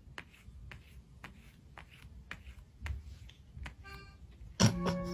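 Light clicks or taps, about two a second, over a low rumble. Near the end comes a sharp knock, then music with bell-like tones begins.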